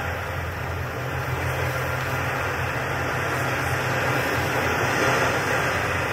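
A steady low rumbling drone with a hiss over it, swelling slightly about five seconds in: a machine-like soundscape under the dance.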